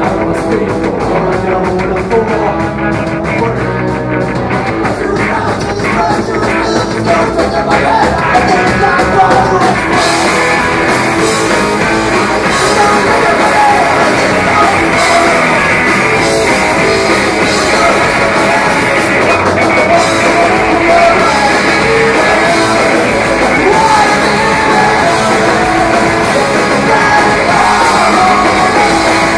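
Punk rock band playing live: electric guitars, bass guitar and drum kit with vocals. The sound grows fuller and louder about ten seconds in.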